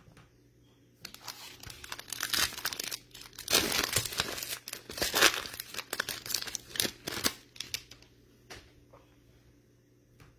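Foil wrapper of a Select football trading card pack being torn open and crinkled by hand. A dense crackle starts about a second in and stops about eight seconds in.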